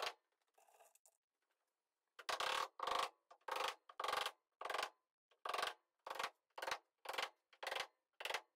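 Hammer nailing thin luan plywood sheathing onto curved roof rafters. After a short pause there is a run of about a dozen sharp blows, roughly two a second, each ringing briefly.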